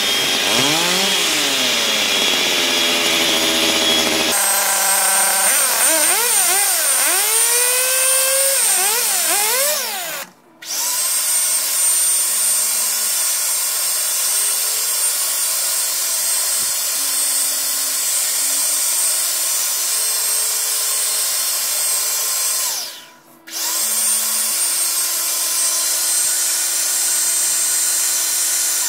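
Electric hand mixer running with its beaters in a bowl, beating chocolate instant pudding mix into milk. The motor's pitch wavers up and down for the first ten seconds or so. It cuts out briefly twice, about ten seconds in and again about twenty-three seconds in, then carries on.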